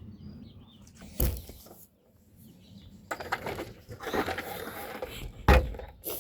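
Parts of a plastic suction pool cleaner being handled: a knock about a second in, rustling and scraping through the middle, and a louder knock near the end.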